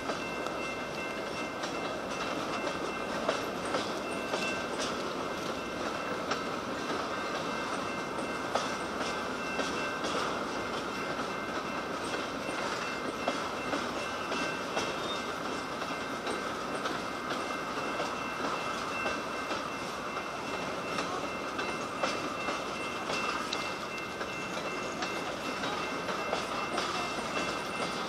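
Freight train cars rolling past at steady speed: a continuous rumble of steel wheels on rail, with frequent clicks as wheels cross rail joints and a few faint, steady high-pitched tones running through.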